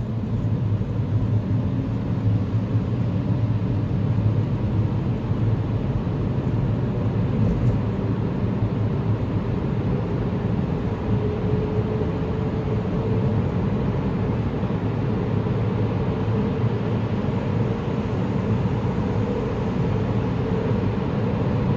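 Road-tunnel noise: a steady, deep rumbling hum of traffic echoing in a tunnel. A faint tone in it slowly rises in pitch about halfway through.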